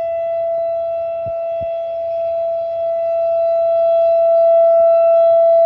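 Tornado warning siren sounding a steady, single-pitch wail during a test, growing somewhat louder over the second half.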